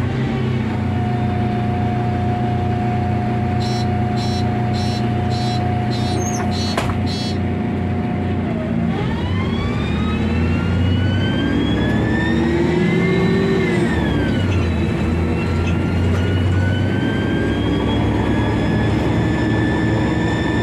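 City bus idling at a stop, with a steady high tone, a row of short high pips and a click about seven seconds in. About nine seconds in it pulls away: the engine and drivetrain whine rises in pitch as it accelerates, drops at a gear change around fourteen seconds in, then climbs again.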